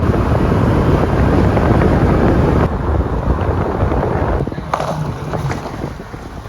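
Wind buffeting the microphone, a loud, steady rumbling noise. It drops in level about a third of the way in and again past the middle, and a few light clicks follow.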